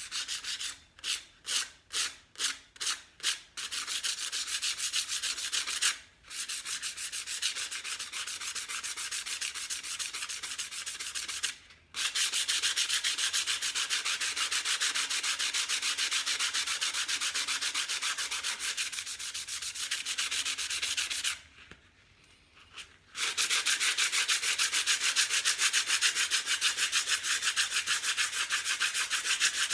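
Fine-grit sandpaper rubbed by hand over a painted jar, lightly scuffing the paint for a worn, rustic finish. It starts as a few separate strokes, then turns to fast, continuous scratching with brief pauses, the longest about three-quarters of the way through.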